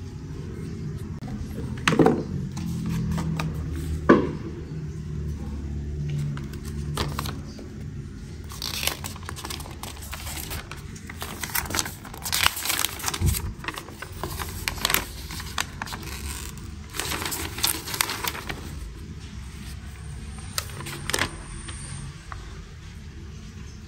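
Unboxing handling of a Cardo Packtalk Bold Duo intercom set and its packaging: two sharp knocks a few seconds in, then bursts of crinkling and rustling packaging, over a steady low hum.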